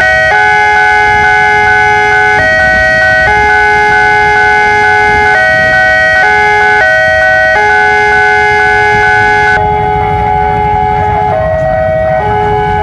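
Railway level-crossing warning siren sounding a repeating electronic pattern of steady tones that step between a few pitches, over the low rumble of waiting motorcycle and car traffic.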